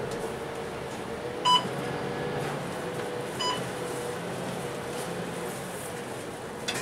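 Two short, sharp electronic beeps about two seconds apart, the first the louder, over the steady interior hum of a Euro 6 MAN NL323F A22 city bus on the move.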